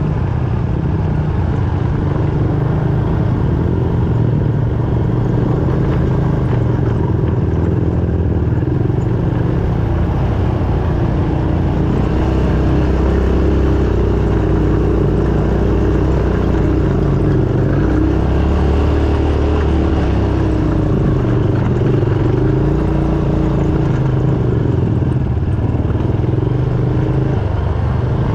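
ATV engine running under way, its pitch rising and falling with the throttle and working harder for a stretch about halfway through.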